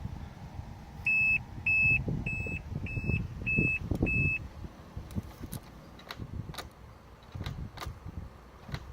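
A car's electronic warning chime beeping six times, short high beeps at a steady pace of under two a second, followed by a few faint, irregular sharp clicks.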